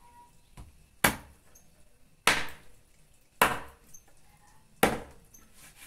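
A large kitchen knife chopping a raw chicken into pieces on a wooden board: four sharp chops, a little over a second apart.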